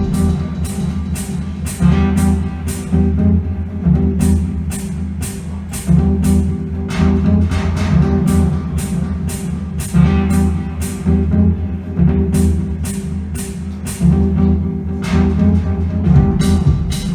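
Live music with a sustained low bass drone under a steady beat of sharp percussive hits.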